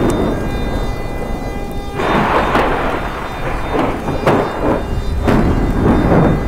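Thunder: rolling rumbles broken by sharp cracks. It swells heavier about two seconds in, and the sharpest cracks come about four and five seconds in.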